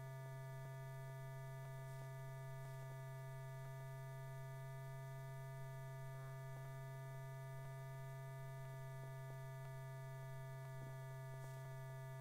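Steady electrical hum on an old film soundtrack: one strong low tone with several fainter steady tones above it, unchanging throughout.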